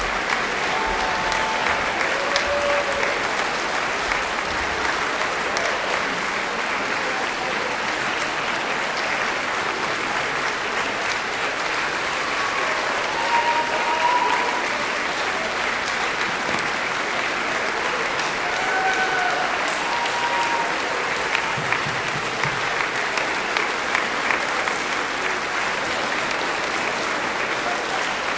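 Concert audience applauding steadily, with a few brief voices calling out over the clapping.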